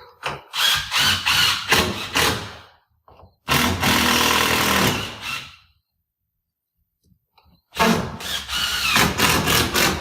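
A power drill driving screws through a 2x nailer board into the ceiling blocking, in three runs of a few seconds each with short pauses between. The motor speed varies as the trigger is worked.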